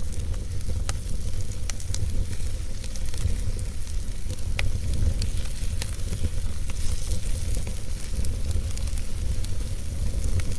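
Wood fire burning in a fireplace: a steady low rumble and hiss with scattered sharp crackles and pops every second or so.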